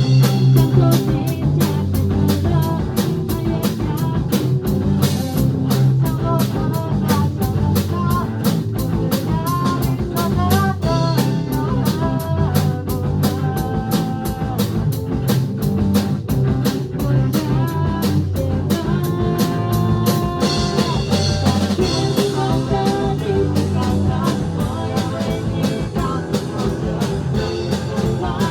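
Instrumental rock music with a drum kit keeping a steady, busy beat under a melody line.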